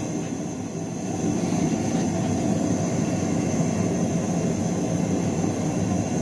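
Gas forge burner running with a steady, loud rushing roar while a knife blade heats inside.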